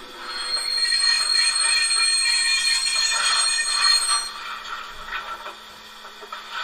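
Locomotive bell ringing from the ESU LokSound 5 sound decoder of a Gauge 1 Prussian T3 (class 89) model steam locomotive. It rings for about four seconds, then drops off to quieter, irregular sounds.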